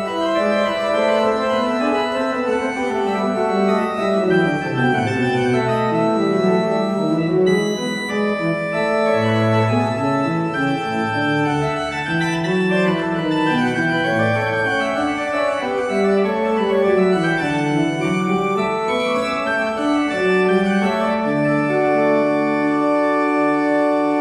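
Church pipe organ playing a polyphonic piece, several voices moving over a bass line, ending on a long held chord.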